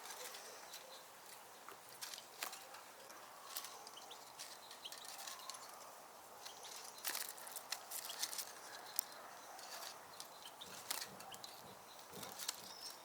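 Faint, scattered chirps of small birds, with light irregular clicks and taps throughout.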